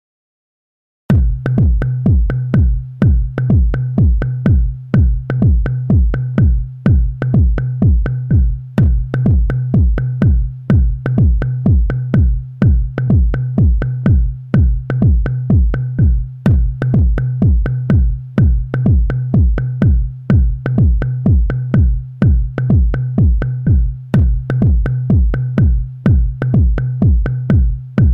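Electronic house instrumental with a drum-machine kick at about two beats a second over a steady low synth bass drone, coming in about a second in after silence.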